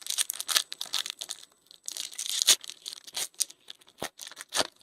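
Foil trading-card pack being torn open, its wrapper crinkling: a run of crackling rips, loudest about two and a half seconds in, with a couple of sharp clicks near the end.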